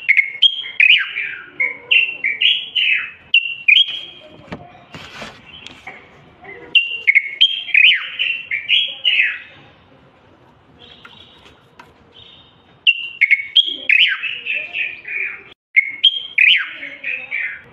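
Common bulbul singing: short phrases of quick, falling whistled notes, given in four bursts with pauses of a second or two between them.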